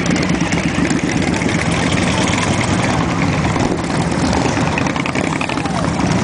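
Several cruiser motorcycles riding past at low speed, their engines running in a steady, overlapping low drone.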